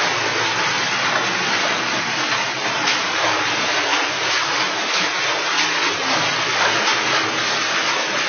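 Water in the narrow rock-cut Hezekiah's Tunnel rushing and splashing steadily around people wading through it.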